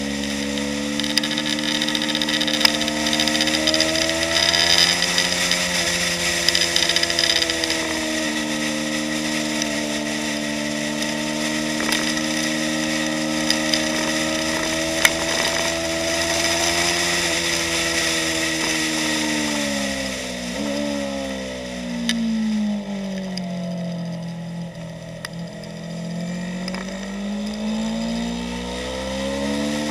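2015 Yamaha YZF-R3's 321 cc parallel-twin engine running hard at fairly steady high revs under a hiss of rushing air. About twenty seconds in, the revs fall in steps as the bike slows for a corner, then climb again near the end as it drives out.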